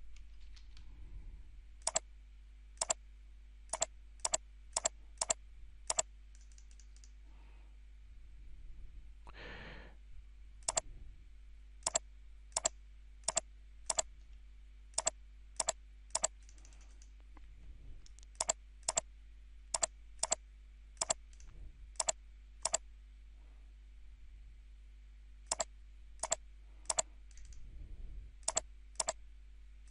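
Sharp single clicks of a computer mouse, coming in loose runs at irregular half-second to one-second spacing, with a breath about ten seconds in, over a faint steady hum.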